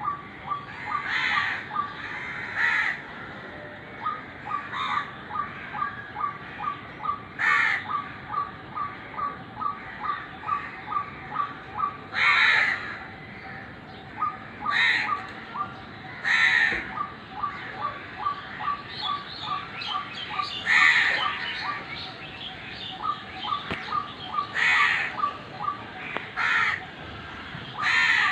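White-breasted waterhens calling: loud harsh croaking calls every second or two, over runs of quick, evenly repeated short notes, about three a second.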